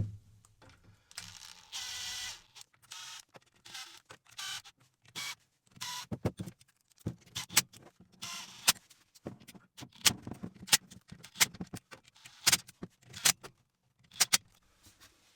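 Irregular metallic clicks and clinks of hand tools and small parts as the clutch cover is fitted back on, with a short scraping rattle about a second in.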